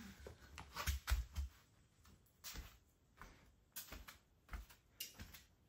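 Soft, irregular thumps and rustles, about a dozen over a few seconds and loudest about a second in: footsteps of a person walking across tatami mats while carrying the phone.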